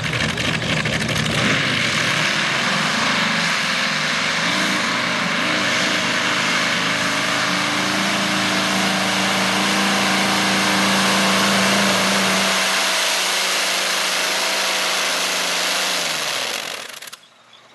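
Modified pulling tractor engine running at full power while dragging a weight sled: a loud, continuous roar with a steady whine. Near the end the engine winds down and cuts off suddenly as the pull ends.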